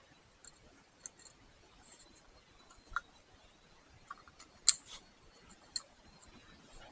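Scattered light clicks and taps from tools and parts being handled during an oil filter change, the loudest about two-thirds of the way in.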